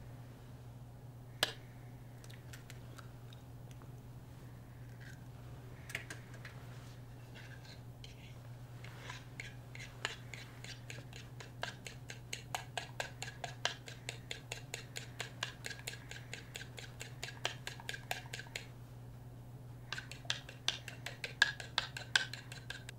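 A utensil beating against a bowl in quick, even clicks, about four a second, with a faint ring on each stroke. It starts a third of the way in, pauses briefly near the end, then resumes. A steady low hum runs underneath.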